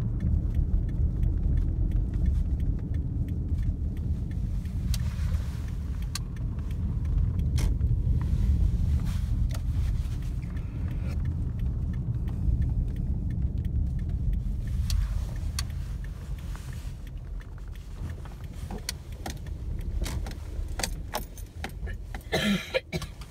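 Inside a moving Toyota car: a steady low rumble of engine and road noise, with light clicking and jingling rattles from about five seconds in. The rumble eases off in the second half as the car slows.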